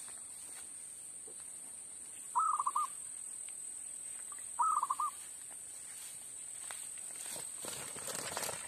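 Zebra dove (perkutut) cooing twice, each call a quick run of four or five pulsed notes lasting about half a second, over a steady high-pitched whine in the background.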